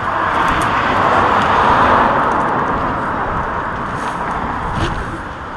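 A car passing on a road: tyre and road noise swelling to a peak about two seconds in, then slowly fading.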